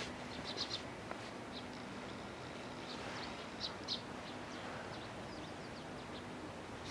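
Small birds chirping in short, high clusters of notes, a couple of times, over a steady background hiss and a faint low hum.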